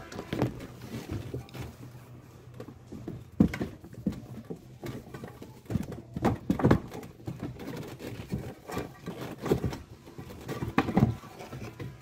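Hands working the metal shaft coupling off a washing machine's spin-dryer motor: irregular clicks, knocks and rattles of metal parts, over a low steady hum.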